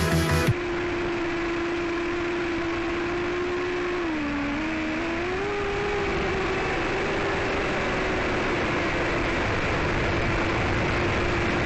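5-inch FPV quadcopter's Emax RS2205 brushless motors and propellers whining steadily through rushing wind. The whine's pitch drops about four seconds in and climbs back about a second later as the motors slow and speed up again. Music cuts off about half a second in.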